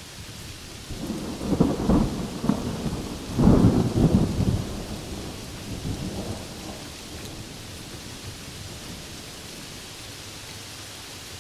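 A thunder rumble over steady rain: it swells up about a second in, with two loud surges, the second the louder, then rolls away over a few seconds, leaving the even hiss of the rain.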